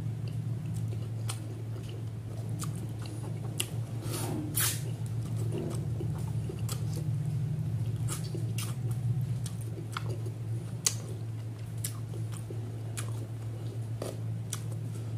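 Close-up wet chewing and mouth smacks of a person eating rice and catfish curry by hand, with sharp wet clicks scattered throughout, over a steady low hum.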